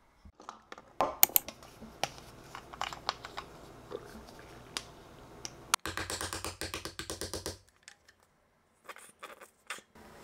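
Small plastic cosmetic tubes being handled on a desk: sharp clicks, taps and scratching as they are picked up and set down, with a burst of quick repeated strokes a bit past halfway, then a few softer ticks as sunscreen is rubbed into the hands.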